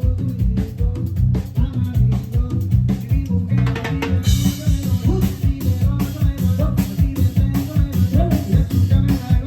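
Loud dance music played over a large sound system, with a driving drum-kit beat and heavy bass; a brighter cymbal-like hiss joins about four seconds in.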